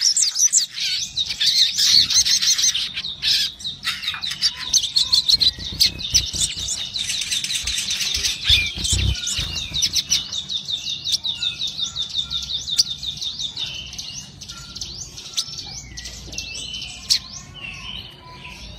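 Male olive-backed sunbird calling in rapid high chirps and a fast trill of repeated notes, fluttering about its cage, agitated. A few dull wing or cage thumps come just before the middle.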